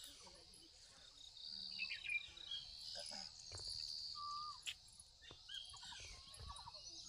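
Faint outdoor morning ambience of wild birds calling, with scattered short chirps and whistles and a few quick repeated notes near the end, over a steady high buzz of insects. A couple of light clicks come a little past the middle.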